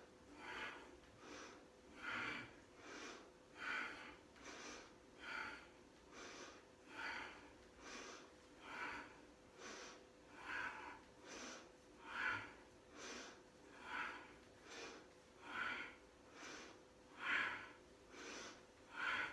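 Forceful rhythmic breathing, a strong breath about every second with softer ones between, paced to repeated sit-up-like core lifts in a Kundalini yoga exercise.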